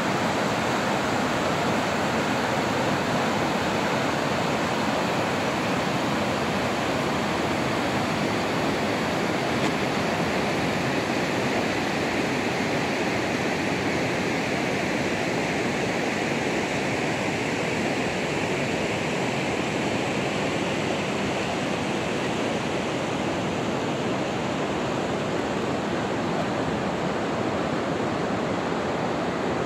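River rapids and a waterfall, a steady, even rushing of water.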